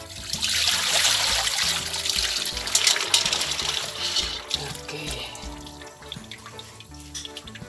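Hot cooking water poured from a large pan into a basin of cold water, splashing for about three seconds, then scattered clicks as the boiled freshwater mussels slide in. Background music plays underneath.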